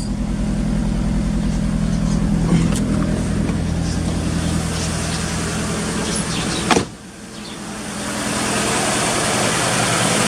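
Volkswagen Jetta engine idling with an unstable random multiple-cylinder misfire (P0300). About seven seconds in there is a click, the low engine drone drops away sharply, and a steady hiss rises in its place.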